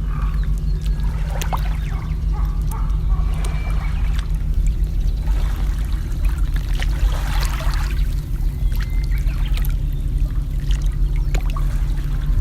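Water trickling and splashing in irregular spells, over a steady low rumble.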